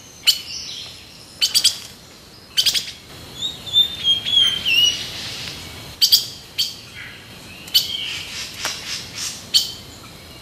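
Birds chirping and calling, a forest birdsong sound effect: sharp short chirps every second or two, with a longer warbling call about four to five seconds in.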